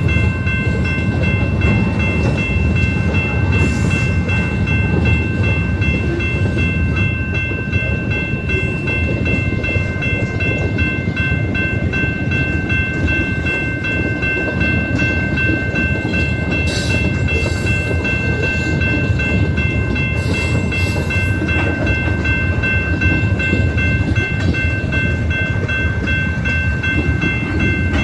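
Mixed freight train of hoppers, boxcars and tank cars rolling through a grade crossing: a steady rumble of wheels on rail, over the continuous ringing of the crossing's warning bell.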